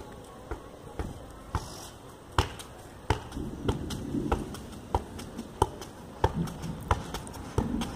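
Dull thuds of a football being juggled with bare feet and knees, the touches coming unevenly at about two a second.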